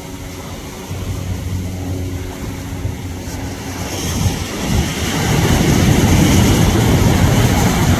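A steady low engine hum, joined about halfway by a louder rushing noise.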